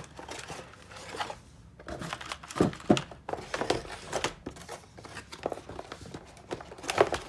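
Plastic packaging crinkling and rustling as items are worked out of a keyboard box, with irregular light clicks and knocks; the louder knocks come about three seconds in and near the end.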